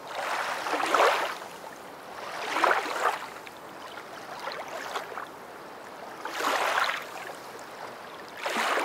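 Swishing noise in about six uneven surges, from a handheld camera being swung and brushed through tall grass and undergrowth on the move.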